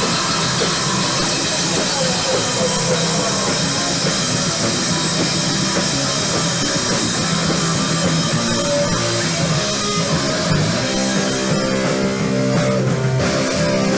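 Live rock band playing loudly with distorted electric guitar and drum kit. From about eleven seconds in, the cymbal wash thins and held guitar chords come to the fore.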